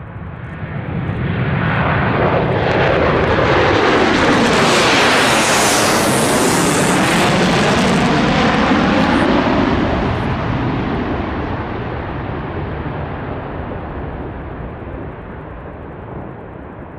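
B-1B Lancer bomber's four afterburning turbofan jet engines, at takeoff power, passing low overhead. The jet noise swells, peaks in the middle with a sweeping, phasing whoosh, then slowly fades as the bomber climbs away.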